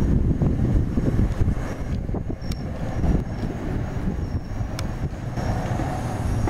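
Wind buffeting the microphone with a heavy, uneven low rumble. Faint, high, repeated chirps of crickets and grasshoppers sound underneath, and two sharp clicks come near the middle.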